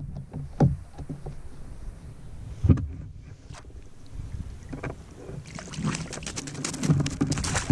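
Knocks and handling noise against a plastic sit-on-top kayak while a small hooked trout is reeled in, with one loud low thump just before three seconds in. From about five and a half seconds in comes a rapid crackling splash as the trout thrashes at the surface beside the kayak.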